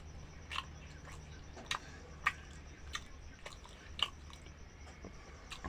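Close-up chewing of gulgula, fried sweet dough fritters: wet mouth smacks and sharp clicks about once or twice a second.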